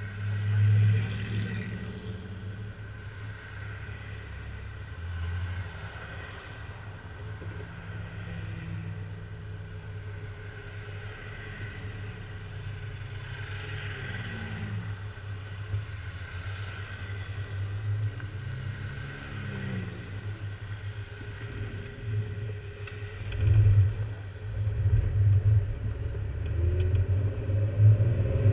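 Jeep engine idling with a steady low rumble while other vehicles go by. Near the end the Jeep pulls away and its engine rises and grows louder as it accelerates.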